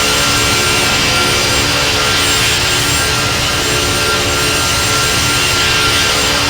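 Boeing 757 jet engines running steadily at takeoff power: a loud, even roar with several steady tones running through it.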